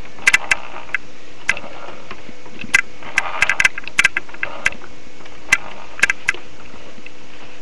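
About twenty sharp clicks and taps at irregular intervals, bunched together in the middle, over a faint steady hum and hiss.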